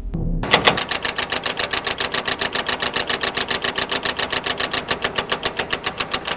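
Rapid, even mechanical clatter of about seven strokes a second, starting about half a second in and stopping just before the end.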